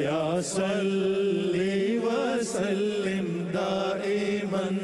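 Background vocal music: a voice chanting an ornamented, wavering melody over a steady held drone note.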